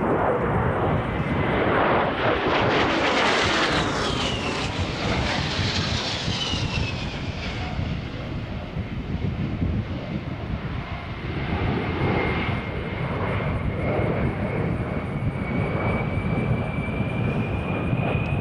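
A-10 Thunderbolt II's twin TF34 turbofan engines whining and rushing as the jet flies a tight level turn past the crowd. The sound is loudest a few seconds in, as the whine drops in pitch, and the whine then rises again slowly near the end.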